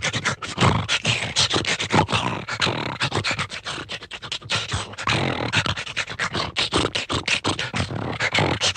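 Cartoon dog sound effect: a rapid, uneven run of short noisy dog sounds, several a second, like frantic sniffing, panting or snuffling.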